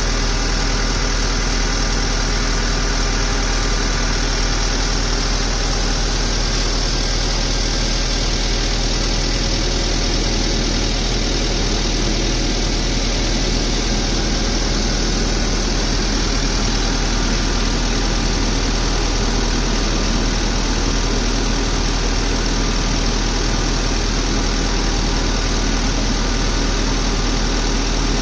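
Engine of a truck-mounted boom lift idling with a steady deep rumble and hum that does not change.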